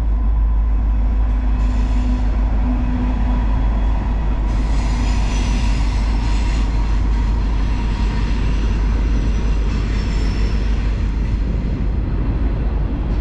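Steady, loud low rumble of a moving vehicle, with a faint steady whine that fades about two-thirds of the way through.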